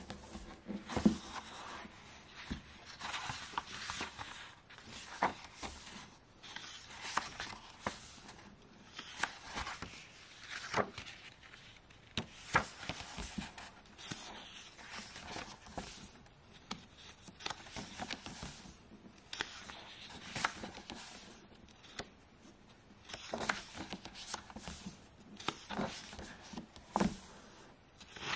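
Pages of a printed softcover sketchbook being turned by hand: a paper rustle and flick every second or two. A sharp knock right at the start is the loudest sound.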